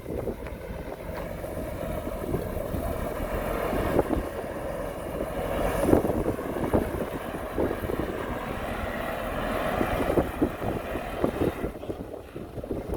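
Heavy diesel construction machinery running, with frequent knocks and rattles. It grows louder toward the middle and eases off about a second before the end.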